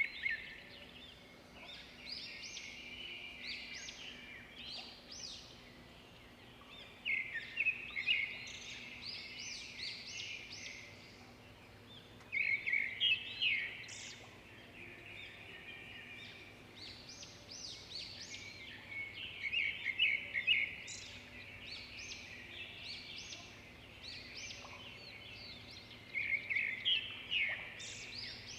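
Birds calling in repeated bursts of rapid chattering notes, a new burst every five to seven seconds, over a faint steady background hum.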